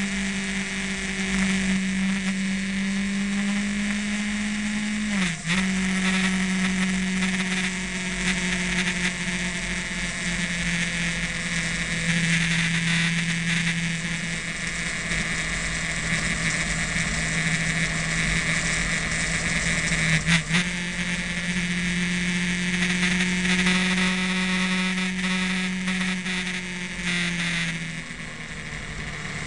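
Motorcycle engine running at steady revs under way. There is a brief dip and a pitch change at a gear change about five seconds in, another about twenty seconds in, and the revs settle lower near the end. Wind rush on the on-board camera runs under it all.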